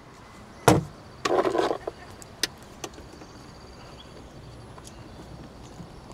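A single knock, then a short clatter and a few light clicks as a small electric kettle cup is handled and set up.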